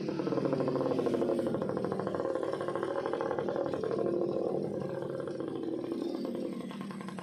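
A small engine running with a fast, even putter that eases a little near the end.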